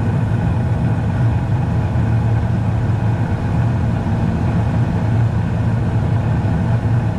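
Newly installed Carrier gas furnace firing on second stage during start-up: a steady, loud hum and rush from the lit burners and the running fans.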